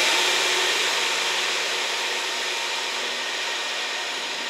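KiHa 40-series diesel railcar train (KiHa 40 and KiHa 47 cars) running away down the line: a steady rushing of engines and wheels, fading smoothly as it recedes.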